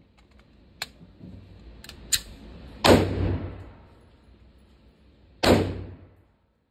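Two gunshots about two and a half seconds apart, each followed by a short echoing tail off the range's hard walls, with a few lighter sharp cracks and clicks before the first.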